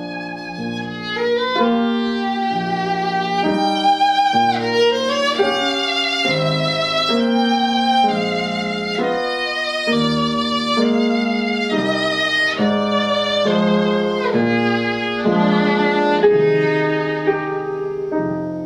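Viola played with the bow: a melodic passage of held notes with audible vibrato.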